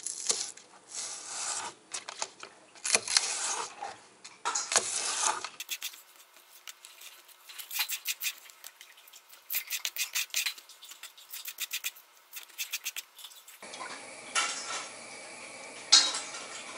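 A kitchen knife slicing and scraping green onions on a wooden cutting board. After a cut, a long run of quick clicks as kitchen scissors snip the green onions. Near the end a few knocks.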